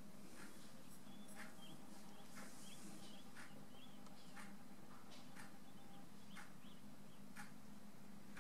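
Quiet room with a steady low hum and scattered soft ticks of a fine watercolour brush touching the paper. A few short, faint high chirps come between about one and three and a half seconds in.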